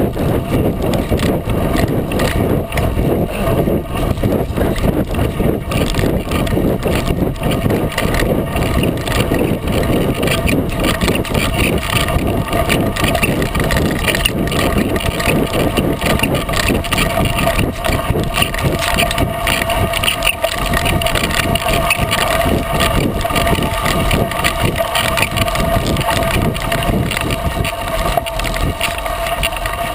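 A 36-inch Coker unicycle tyre rolling fast down a dirt-and-gravel trail: a constant loud rumble with rapid clattering, picked up through the frame-mounted camera, with some wind on the microphone.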